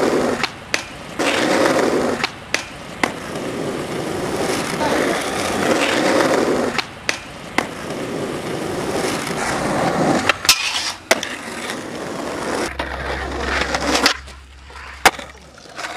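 Skateboard wheels rolling on asphalt and concrete, broken by about nine sharp clacks of the board popping and landing tricks.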